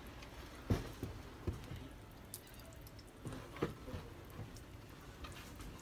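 Thick fermented teff injera batter being stirred with a metal utensil in a plastic tub: soft wet squelching, with a few light clicks of the utensil against the tub.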